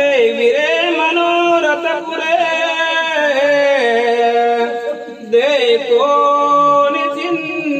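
A man singing a slow, chant-like melody with long held notes that bend in pitch, with a short pause between phrases about five seconds in.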